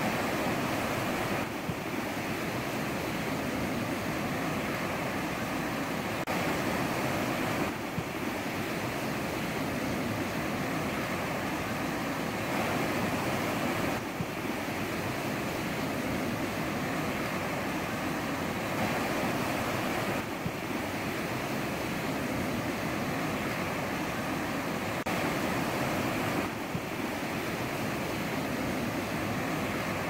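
Ocean surf breaking and washing ashore in a steady rush, with a few abrupt small shifts in level every several seconds.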